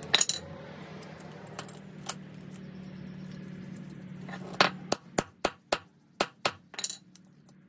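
Sharp metallic clicks and clinks of small hand tools and wire terminals being handled while wiring is terminated, with a run of separate, louder clicks in the second half. Under them is a low steady hum that fades out a little past halfway.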